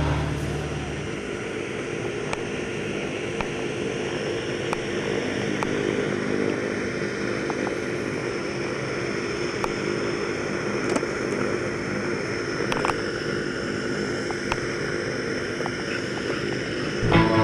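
Propeller aircraft engine droning steadily in the distance, with a few faint ticks over it.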